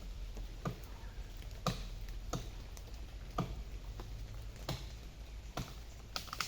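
Axe blows chopping into a tree, about seven sharp strikes roughly a second apart over a steady low rumble.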